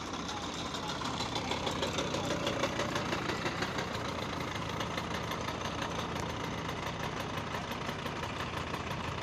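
An engine idling with a fast, even knocking pulse.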